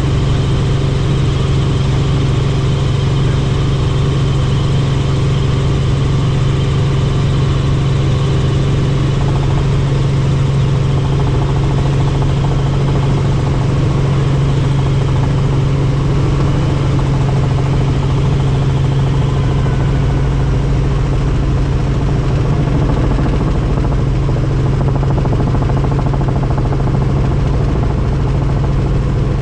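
Helicopter in flight: the rotor and engine make a steady, loud drone with a strong low hum, unchanging throughout.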